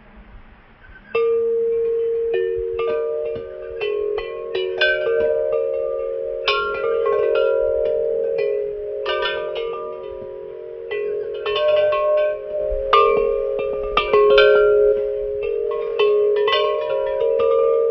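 Church bells ringing: repeated strikes on several pitches that overlap into a sustained ring, starting suddenly about a second in.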